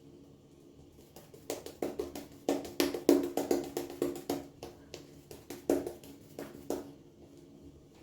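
A run of irregular light taps and knocks from handling shaving gear, over faint steady music.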